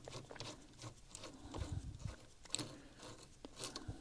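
Faint, scattered clicks and small scrapes of a screwdriver turning the cap screws of Ruger scope rings, run in only loosely.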